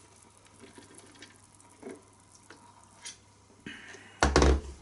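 Mostly quiet, with faint light clicks as the pressure cooker's lid is lifted off. About four seconds in comes a loud bump with a deep rumble and rustling from the camera being handled and moved.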